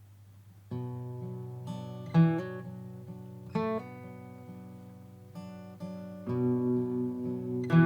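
Acoustic guitar picked in a song's opening, its notes left to ring, starting about a second in after a faint hum. A few sharper accented notes stand out, and the playing gets louder near the end.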